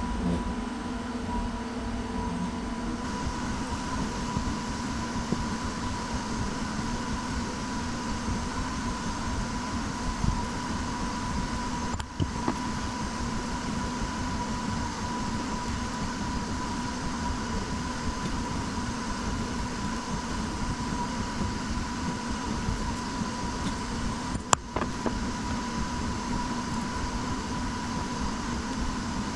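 A workshop machine running steadily with a constant whine over a hum, briefly dropping out twice.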